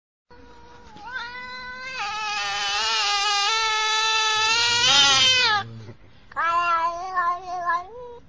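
Angry cat yowling a threat: one long, wavering yowl lasting about five seconds, then after a brief pause a second, shorter yowl.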